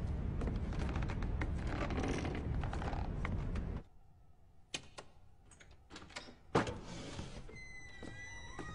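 Footsteps on wooden porch steps over a steady background hiss. After a sudden drop to a quiet room come sharp clicks of a lock and latch, and a loud thunk as the front door opens. Near the end comes a creaking door hinge with a falling pitch.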